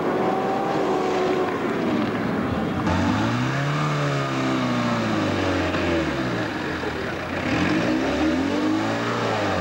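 Off-road 4x4 engine under load, working through deep muddy ruts. It revs up and falls back twice, after a steadier engine note in the first few seconds.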